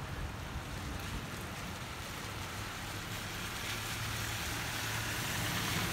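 Steady rain falling on a street, with a car's tyres hissing on the wet road as it approaches, the hiss growing louder over the last couple of seconds.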